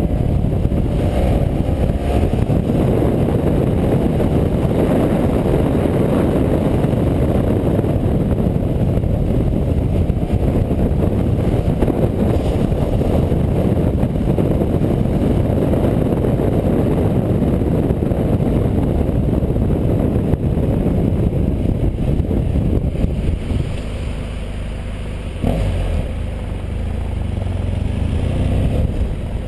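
A motorcycle riding at road speed: the engine runs under heavy wind noise on the mount-mounted camera's microphone. About three quarters of the way through the sound eases and drops as the bike slows, then picks up again near the end.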